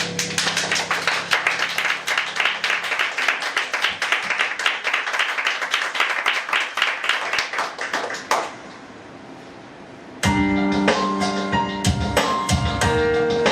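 Audience applauding for about eight seconds while a held chord dies away. After a short lull the next song starts with percussion and ringing pitched notes.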